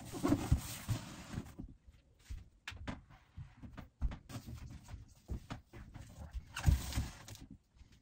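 Large cardboard parcel boxes being carried, handled and set down: rustling and scraping of cardboard with irregular knocks and thumps, the loudest thump about seven seconds in as a box is put down on the stack.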